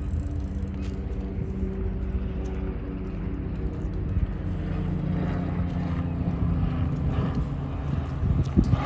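A steady engine drone with several low hum tones over a low rumble, growing a little stronger in the second half, with a few knocks near the end.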